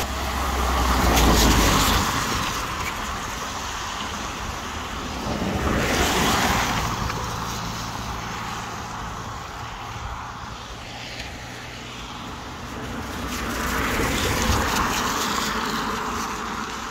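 Cars driving past on a wet road, tyres hissing on the wet tarmac. Three passes swell and fade: one right at the start, one about six seconds in, and one near the end.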